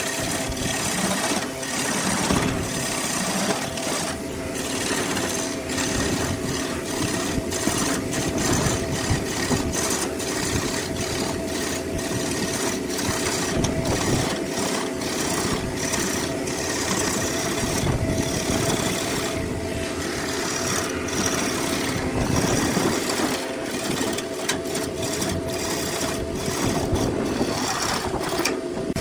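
Wood lathe running with the blank spinning while a turning tool cuts into the wood: a steady motor hum under a rough scraping hiss, broken by frequent short catches of the tool on the wood.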